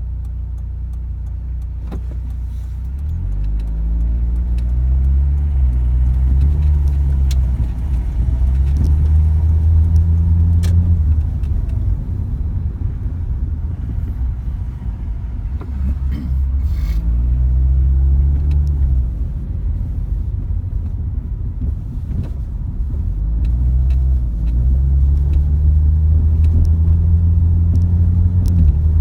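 A car driving, its engine rising in pitch and dropping several times as it accelerates and changes gear. Scattered sharp knocks come from the Asomi shock absorbers fitted with SS20 Gold parts: the suspension knock being demonstrated.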